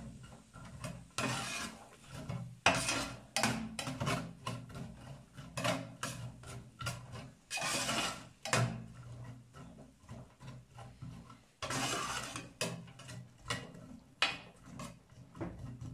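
A spatula scraping and stirring sliced onion and garlic around a stainless steel electric skillet. The strokes are repeated and irregular, as the onions are sautéed without oil.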